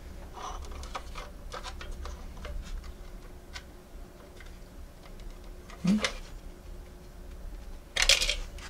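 Light clicks and taps of a plastic model railway turntable and its small motor unit being handled and fitted, with a louder click about six seconds in and a short louder scuff near the end.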